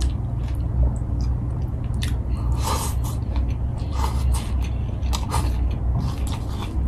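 Close-up mouth sounds of eating by hand: chewing with wet smacks and clicks, a louder smack about three seconds in, over a steady low hum.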